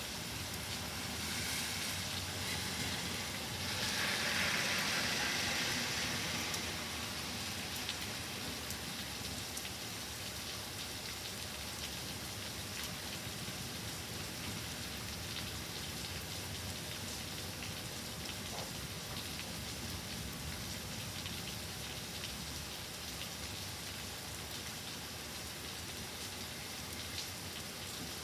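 Rain falling steadily as a continuous hiss, swelling louder for a couple of seconds about four seconds in.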